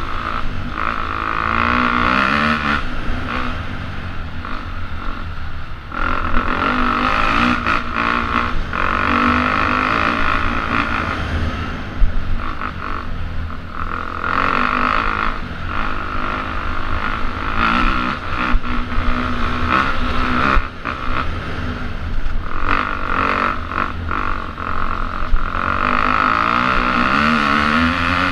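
Enduro motorcycle engine heard from on the bike, revving up and falling back again and again as the rider works the throttle along a rough dirt trail, with occasional sharp knocks from the bumps.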